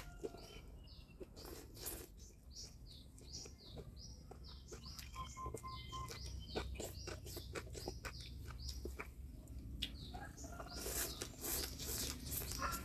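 A person slurping and chewing noodles with chopsticks, a string of short wet clicks, busiest near the end. Small birds chirp over and over in the background.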